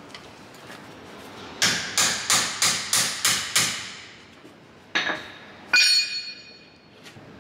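Hammer blows tightening the knock-off spinner on an MGB chrome wire wheel: a quick run of about seven strikes, then two single blows, the last one ringing.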